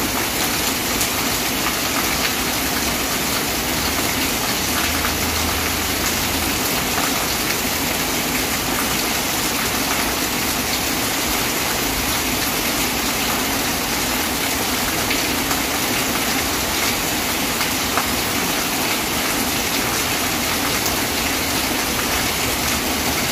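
Heavy rain falling steadily on a paved lane and roofs: a dense, even hiss with scattered close drops.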